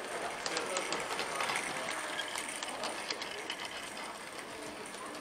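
Model train running on its track, with rapid, irregular clicking and rattling.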